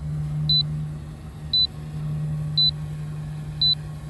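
Low-battery warning beeping from an L500 Pro drone's remote controller: short high beeps about once a second, four in all, over a steady low hum.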